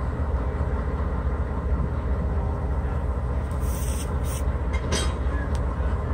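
EMD GP38-2 diesel-electric locomotive's 16-cylinder two-stroke diesel engine running with a steady low rumble and hum, heard across the yard. A short knock comes about five seconds in.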